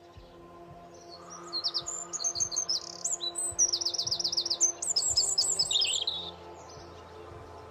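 A small songbird singing a quick run of high chirps and trills, with rapid downward-sweeping notes, from about a second in until it stops about six seconds in.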